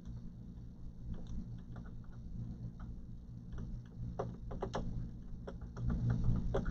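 Scattered small plastic clicks and scrapes as a pin is worked into an optical drive's manual-eject hole to release the CD tray, over a steady low hum.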